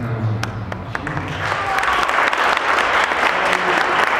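Wedding guests applauding in a church: a few scattered claps at first, swelling to full, steady applause about a second and a half in.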